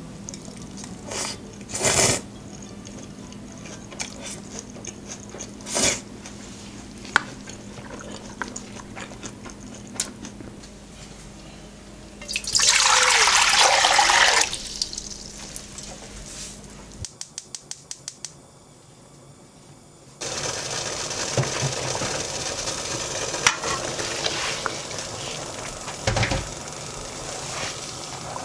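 Kitchen work sounds: scattered clicks and knocks of utensils, then a loud rush of running or pouring water for about two seconds midway. After a cut, a steady rush of water noise carries on to the end, with a few knocks in it.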